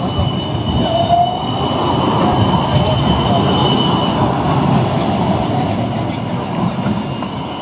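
Siemens Combino tram passing close by, its wheels rolling on street-set rails with a steady rumble and a thin high whine that fades about four seconds in. There is a brief wheel squeal about a second in.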